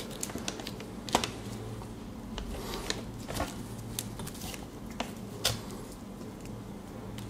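Light plastic clicks and taps, irregular with a few sharper ones, of modular power-supply cables and their plastic connectors being handled.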